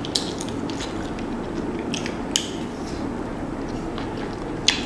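Boiled shrimp shell being peeled by hand and bitten, giving a few sharp cracks and snaps over a steady low background noise.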